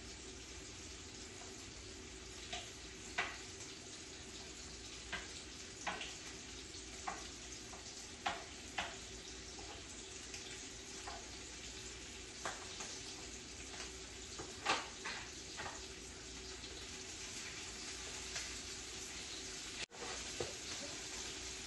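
Butter sizzling as it melts and heats in a frying pan on medium heat: a steady hiss with scattered small pops.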